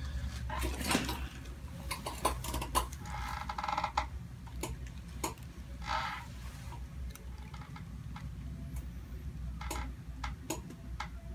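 Quiet handling sounds during a chiropractic neck adjustment: scattered light clicks and brief rustles, with no single loud crack standing out.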